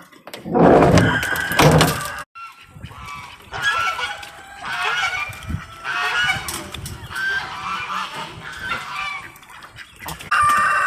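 A flock of geese honking repeatedly, with a loud rush of noise in the first two seconds and one loud honk near the end.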